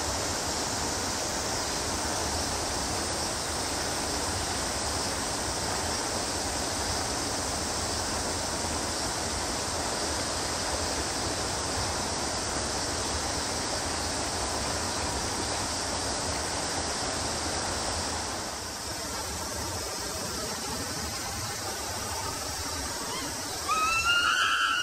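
Steady rushing background noise, then near the end a chimpanzee's loud, high, arching screams.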